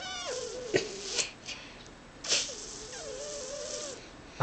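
A baby making wet spit noises with her tongue and lips, blowing raspberries in a few short sputters mixed with wavering hums of her voice.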